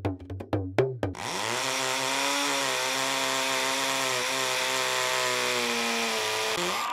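Cartoon sound effect of a woodpecker pecking into the moon: rapid hard wooden taps for about the first second, then a steady buzzing power-tool sound like a chainsaw that runs about five seconds and cuts off just before the end.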